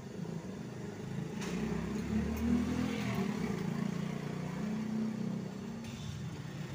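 A motor vehicle's engine passing by, growing louder over the first couple of seconds and then slowly fading.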